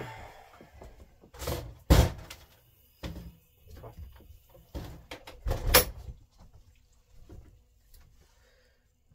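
A camper's entry door opened and shut: a loud clack about two seconds in and another loud bang near six seconds, with a few smaller knocks between.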